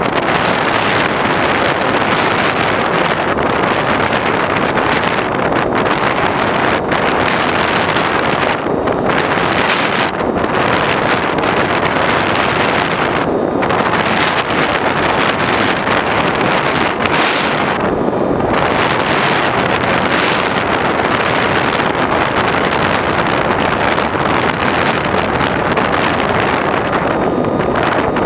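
Loud, steady rush of airflow over the onboard GoPro microphone of an X8 flying wing in cruise, with the aircraft's motor and propeller running underneath. The higher part of the rush dips briefly a few times.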